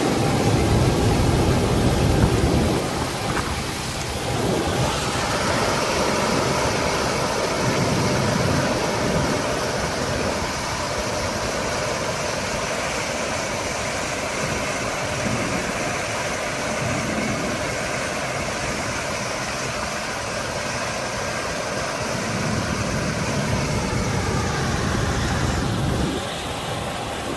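Claas combine harvester running steadily, a mix of engine rumble and rushing hiss, with the sound shifting abruptly about five seconds in and again near the end.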